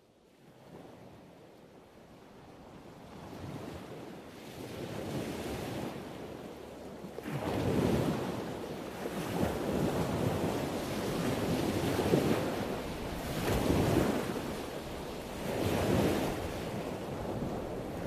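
Ocean surf breaking on a sandy beach, fading in from near silence and building, with waves swelling and washing in about every two seconds from about seven seconds in.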